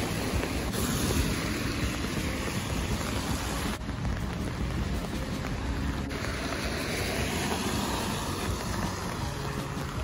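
Steady rain falling on wet pavement, an even hiss, over a low rumble of wind on the microphone.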